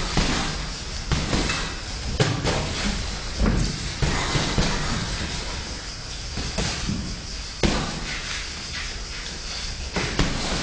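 Boxing gloves landing punches during sparring: a series of sharp smacks at irregular intervals, some a second or more apart and a couple in quick succession.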